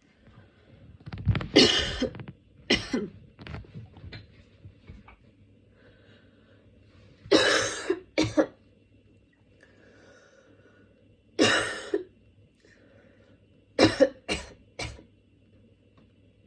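A woman coughing from a head cold in a short fit. There is a cluster of harsh coughs in the first few seconds, then single long coughs about seven and eleven seconds in, and a quick run of about four coughs near the end.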